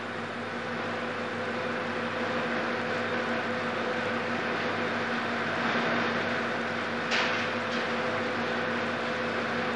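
Oil drilling rig machinery running on the drill floor: a steady mechanical drone with a constant hum, and one sharp knock about seven seconds in.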